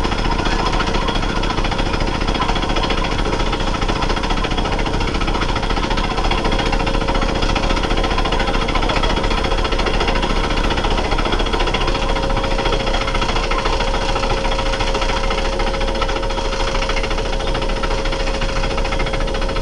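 Horizontal rail-mounted pneumatic rock drill hammering its bit into quarry stone, a loud, rapid, unbroken clatter with a steady hum running through it.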